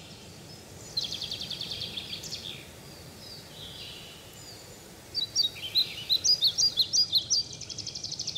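Songbirds singing over a faint steady background hiss: a fast high trill about a second in, then a run of louder, quick chirps of varying pitch from about five seconds in.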